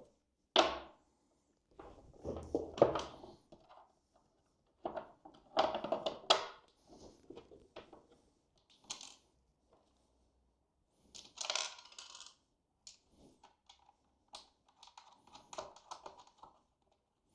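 Small metal hardware (bolts, nuts, washers) clinking and knocking as it is handled, with some rustling between. The sounds come in irregular short bursts, with the sharpest clicks about half a second in and around six seconds in.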